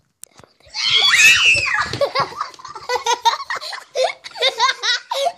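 A woman lets out a high shriek of fright lasting about a second, startled by someone in a clown mask, then breaks into a run of quick, rhythmic bursts of laughter.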